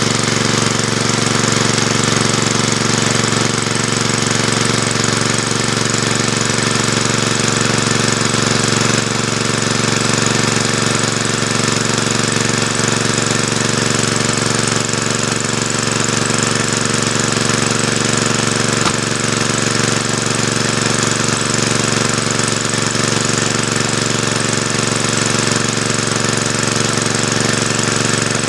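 An engine running steadily at an even speed, with a fast, regular knocking beat.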